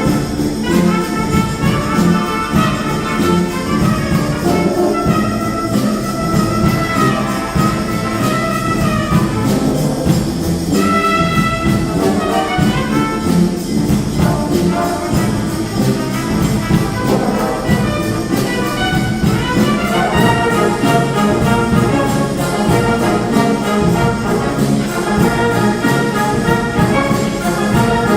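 Concert wind band playing, with trumpets and trombones prominent over a full ensemble.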